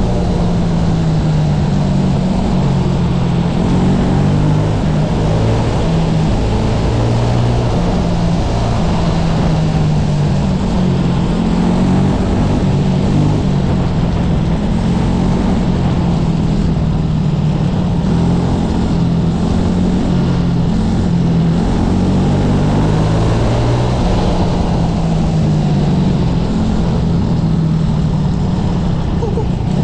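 SA250 racing kart's engine running hard on track, its note rising and falling over and over as the driver accelerates and lifts through the corners.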